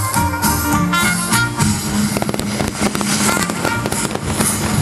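Music playing loudly over a fireworks display, with fireworks launching and bursting; a run of sharp cracks and pops comes about two seconds in.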